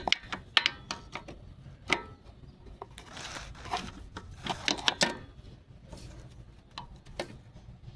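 Adjustable crescent wrench clinking and scraping against metal as it is fitted onto and worked around an engine's oil drain plug: irregular sharp clicks and knocks, with brief scrapes.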